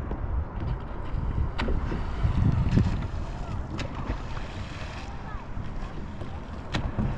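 Wind buffeting the microphone over water sloshing against a kayak, with a few sharp knocks against the hull.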